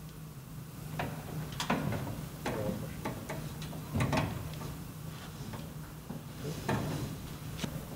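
Irregular knocks, clicks and rattles as heavy insulated service conductors are bent and worked into a sheet-metal meter base enclosure, over a steady low hum.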